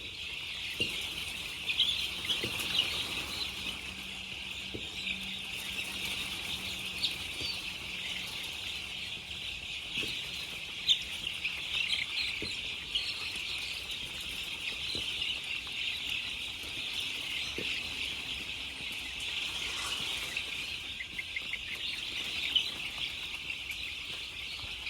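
A dense, continuous chorus of many birds chirping at once, a steady high chatter with scattered louder chirps standing out.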